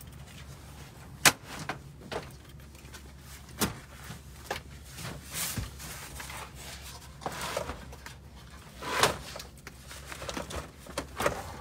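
Scattered handling noises around a plastic dog crate in a small plane's cabin: a sharp knock about a second in, a second knock a couple of seconds later, and rustling and scraping in between.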